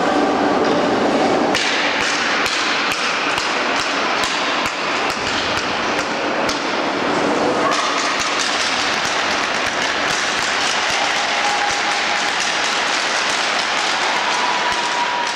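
A steady wash of ice-rink noise with many sharp taps and knocks over it, thickest over the first several seconds.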